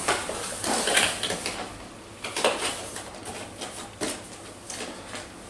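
Small cardboard boxes and drone parts being handled and packed away: scattered taps, knocks and rustles, with sharper knocks about a second in, midway, and about four seconds in.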